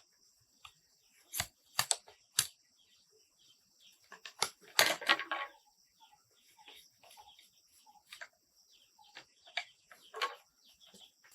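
Irregular sharp wooden knocks and clatter, a few single strikes and then a denser rattle about five seconds in, from work on the fence, over a steady high insect drone.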